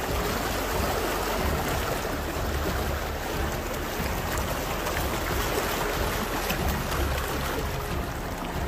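Muddy floodwater running fast over a street, with a steady rushing and splashing and a steady low rumble underneath.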